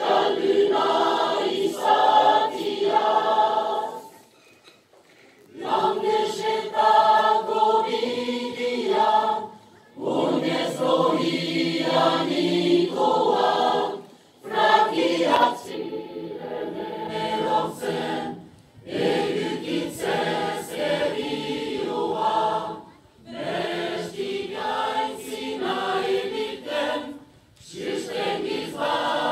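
Large mixed choir of men and women singing a Basque song in unison phrases, without instrumental accompaniment. Each phrase lasts about four seconds, with a short breath-pause between phrases.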